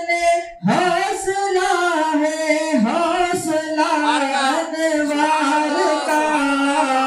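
A man singing a manqabat, an Urdu devotional praise poem, unaccompanied, in long held and ornamented notes with a short breath break about half a second in.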